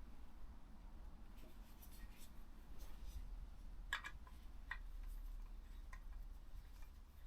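Faint clicks and light rubbing as small parts are handled and fitted: a spacer going onto the end of a motorcycle handlebar for a bar-end mirror. The clearest click comes about four seconds in, with a few softer ones after.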